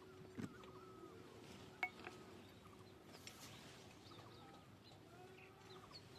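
Faint rural outdoor ambience: distant birds chirping on and off over a faint steady hum, with two soft knocks in the first two seconds.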